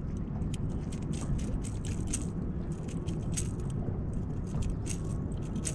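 Light, irregular clicking and rattling over a steady low rumble.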